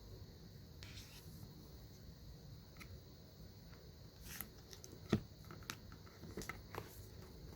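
Close handling of a boxed card deck being unboxed: a brief soft rustle, then scattered light taps, scrapes and clicks, the sharpest click about five seconds in.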